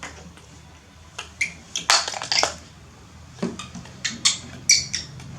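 Irregular sharp clicks and clinks of small hard objects being handled, some with a brief ringing tone, coming in two clusters: one starting about a second in and another from about three and a half seconds.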